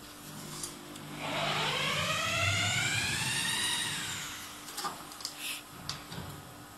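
A motor whine that rises in pitch about a second in, holds, and falls away again, followed by a few light clicks and knocks.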